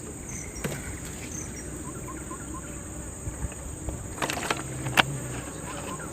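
Steady high-pitched drone of insects, with a few short chirps over it. Several sharp clicks or knocks come in a cluster near the end, one much louder than the rest.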